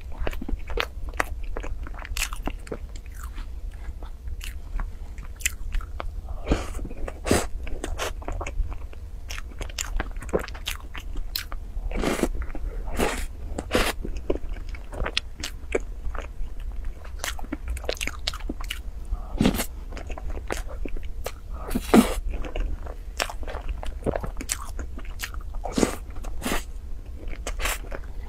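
Close-miked eating of a chocolate-coated cake dessert: chewing with many irregular crisp crunches and clicks, one crunch louder about two-thirds of the way through.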